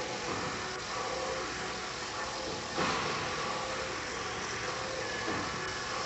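Angle grinder running steadily as it carves into a burnt wood panel, with a brief louder surge a little under three seconds in.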